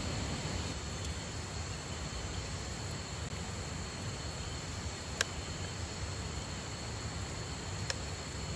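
Steady outdoor riverside noise with a faint, steady high insect tone. Two short sharp clicks come about five seconds in and again near the end.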